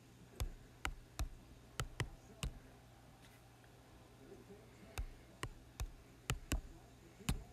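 Fingertip taps on an iPad touchscreen while numbers are typed on an on-screen keypad: a run of six sharp taps, a pause of about two and a half seconds, then six more.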